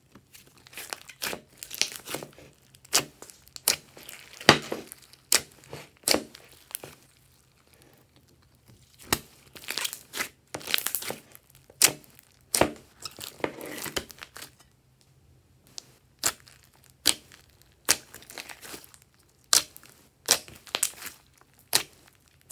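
Hands kneading and poking into a large batch of glossy slime mixed with clay, giving irregular sharp clicks, pops and crackles, with denser crackling stretches between short quiet pauses.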